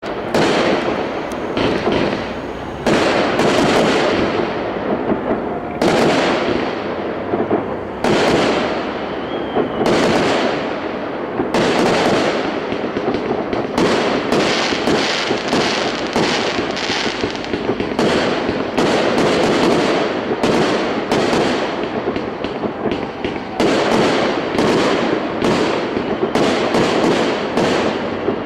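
A fireworks salute going off: a continuous string of loud bangs, about one or two a second, each trailing off in a crackling, echoing tail.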